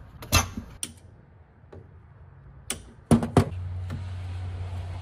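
Scattered sharp clicks and knocks from tools and parts being handled around a car's AC compressor, with a quick cluster of three a little after three seconds in. After that a steady low hum sets in.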